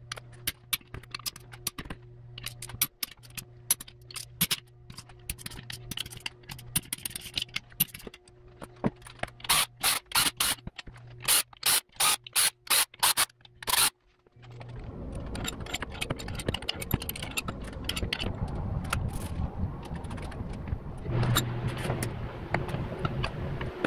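Socket ratchet clicking in quick strokes with scattered knocks as the bolts joining the halves of a Subaru EJ25 engine block are undone. After a short gap about 14 s in, a steady rustling and scraping as the aluminium block is handled on cardboard.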